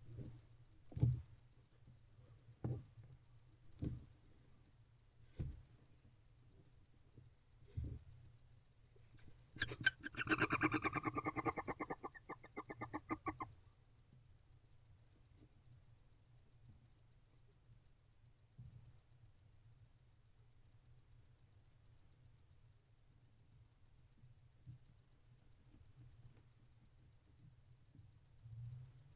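Barn owl giving a rapid stuttering call of evenly spaced pulses, about four seconds long, starting about ten seconds in. Before it come a few soft knocks and scuffs as the owl shifts in the nest litter.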